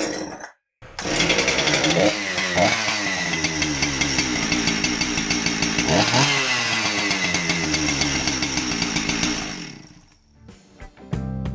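Husqvarna 372XP two-stroke chainsaw running after its fuel-line repair, revved up and back down about two seconds and six seconds in, then dying away near the end.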